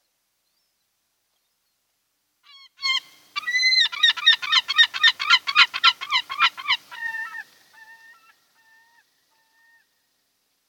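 Osprey calling at close range: a rapid, loud series of chirping calls, about four a second, that starts a little after two seconds in and then trails off into a few fainter, spaced calls.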